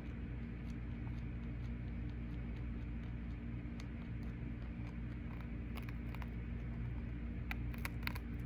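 Chinchilla gnawing a hard apple pomace treat: quick small crunching clicks, sparse at first and coming in clusters about six seconds in and near the end, over a steady low hum.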